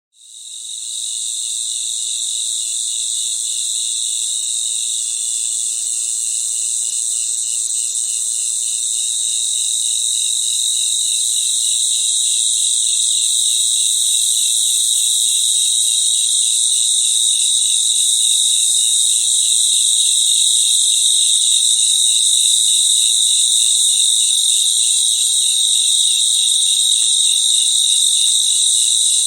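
Crickets chirping in a dense chorus: steady, high-pitched trilling layered with a lower, rapidly pulsing trill. It fades in over the first second.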